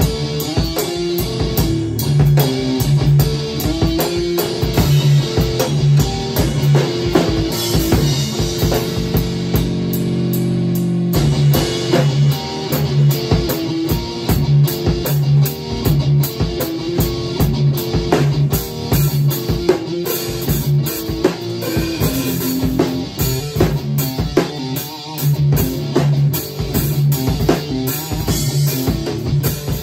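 Electric guitar and acoustic drum kit playing a live rock jam: guitar riffs over a steady drum beat. About eight or nine seconds in the drums thin out under held guitar notes, and the beat comes back about eleven seconds in.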